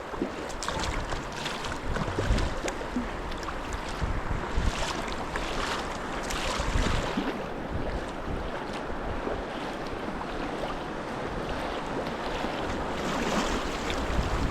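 White water rushing around a kayak running a river rapid, with irregular splashes over the top and wind buffeting the microphone as a low rumble.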